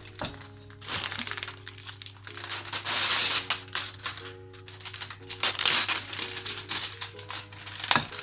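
Soft background music of steady held notes, over which something is crinkled and rustled in handling, loudest about three seconds in.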